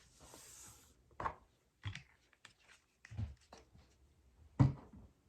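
Card stock and paper being handled on a tabletop: a soft rustle of paper sliding, then four light taps and knocks spread over a few seconds, the last one the loudest.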